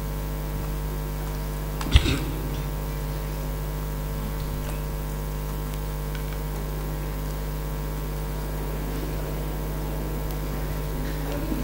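Steady electrical mains hum from the stage sound system, with a single sharp knock about two seconds in.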